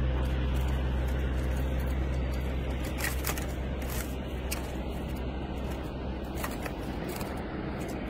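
A caged bird flapping and throwing itself against the bars of a bamboo birdcage, trying to get out: scattered light knocks and rustles from about three seconds in, over a steady low rumble that fades away.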